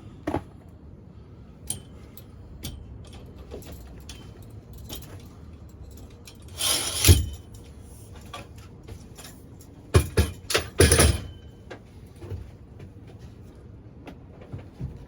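Clattering handling noises: scattered light clicks and knocks, a rough scraping rustle about seven seconds in, and a quick cluster of sharp knocks a few seconds later.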